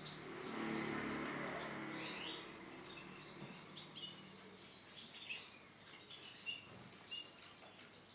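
Female Isabel canary giving short, high chirping calls, repeated irregularly several times a second, with a brief rushing noise during the first two seconds.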